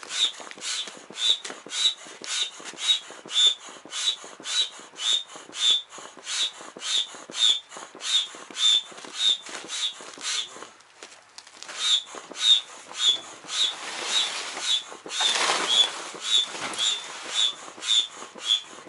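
Foot pump inflating an inflatable boat's tubes: even pumping strokes about twice a second, each pushing out a short high whistle of air. The pumping pauses for about a second near the middle.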